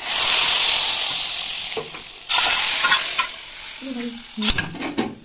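Hot oil tempering of cumin seeds and dried red chillies sizzling loudly as it hits the dish. It comes in two sudden surges about two seconds apart, each fading away, with a sharp knock near the end.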